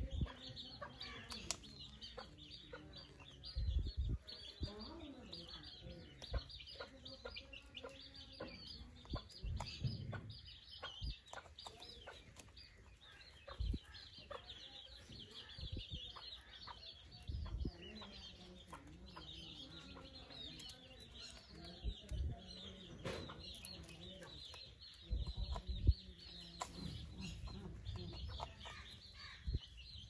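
Birds chirping and chattering without a break, with clucking calls mixed in and a few short low bumps.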